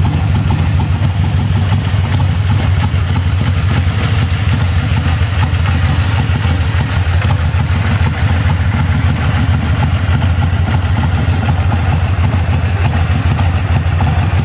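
1985 Harley-Davidson Ironhead Sportster's air-cooled V-twin engine idling steadily.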